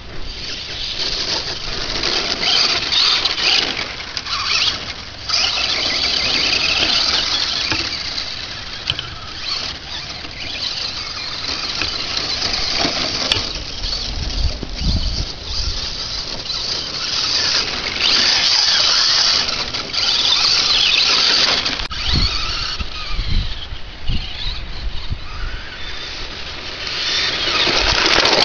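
Brushless electric motor of a Traxxas Slash VXL radio-controlled truck whining, its pitch rising and falling as it is throttled up and down. Occasional low thumps mid-way.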